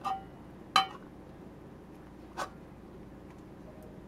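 Three light metallic clinks and knocks from a 2.5-inch hard drive on its tray and its metal external enclosure case being handled and fitted together; the second, just under a second in, is the loudest.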